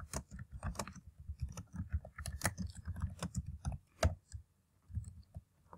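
Typing on a computer keyboard: a quick, dense run of key clicks, the loudest about four seconds in, after which it slows to a few scattered keystrokes.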